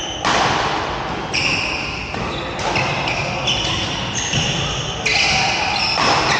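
Badminton players' court shoes squeaking on the hall floor, one high squeak after another, with thuds from play and a large echoing hall behind them.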